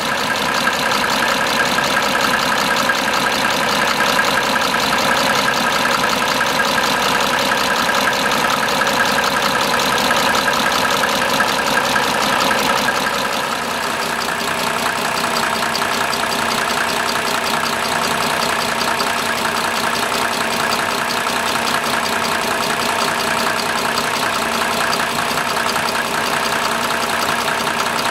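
Mercedes-Benz OM603 3.0-litre six-cylinder turbodiesel idling steadily, with its fast, even diesel clatter. It becomes slightly quieter about halfway through.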